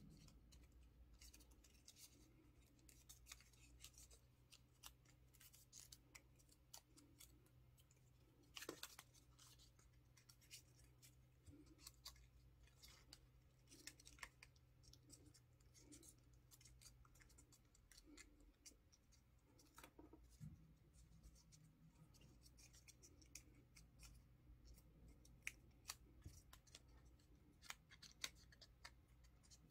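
Faint crinkling and rustling of printer paper being pinched, twisted and folded by hand, with scattered soft crackles and clicks over a low steady room hum.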